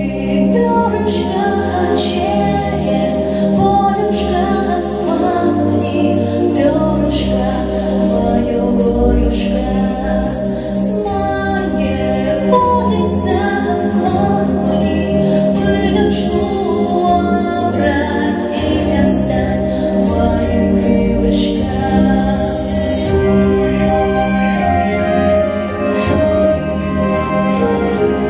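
A young girl singing a song into a microphone over instrumental musical accompaniment, with the voice amplified through the hall's sound system.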